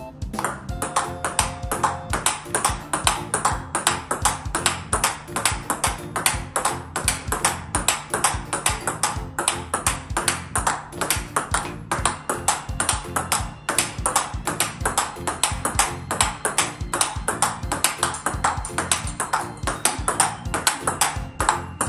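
Large-ball table tennis rally of backhand hits: a quick, even run of sharp clicks as the 44 mm ball strikes a bat faced with DONIC L-Meister 44 rubber and bounces on the table. Background music plays under it.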